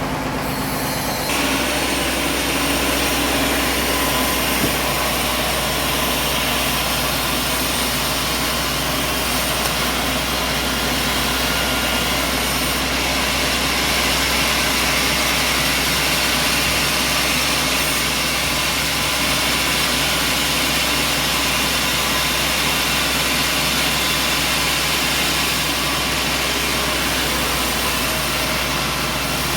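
An engine-driven machine running steadily with a low hum, its sound shifting about a second in and then holding even.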